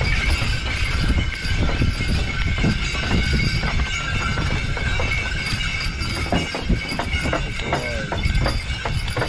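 Harness jingle bells on a pair of Belgian draft horses ringing steadily as they pull a sleigh, with hoof clops and a constant low rumble of the moving sleigh.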